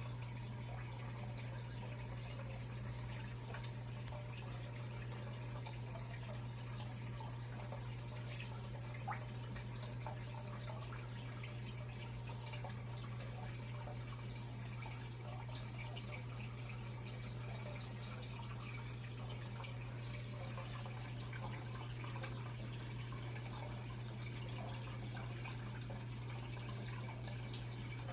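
Aquarium water running and dripping steadily over a constant low hum from the tank's filter or pump, with a single small click about nine seconds in.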